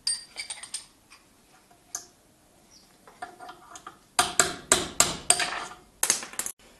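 Hammer striking a steel punch to drive the axle out of a metal bandsaw's blade-guide bearing holder clamped in a vise: a few light ringing taps at first, then a quick run of about five hard metallic blows about four seconds in and a few more near the end.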